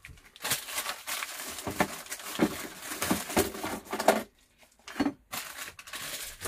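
Packaging crinkling and rustling as it is handled, in two stretches with a short pause about four seconds in.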